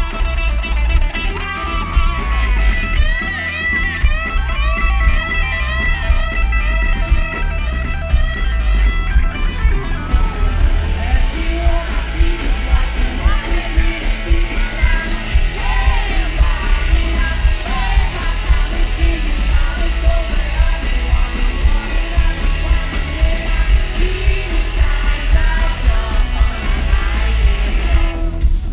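Live rock band playing: a Telecaster-style electric guitar plays lead lines over drums and bass, and a male lead vocal comes in singing about ten seconds in.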